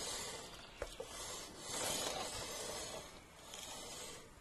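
Motorcycle drive chain running slowly over the rear sprocket as the wheel is turned by hand: a faint, soft hiss. There is a light click a little under a second in.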